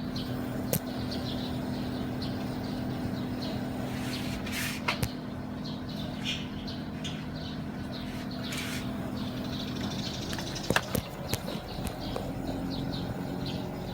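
TECO MS-LV36IH air conditioner starting up, its fan and compressor running with a steady hum, while birds chirp in the background. A few light clicks come through.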